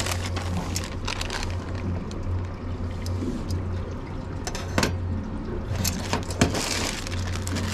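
Water sloshing and lapping, with scattered light clicks and taps and a steady low hum underneath.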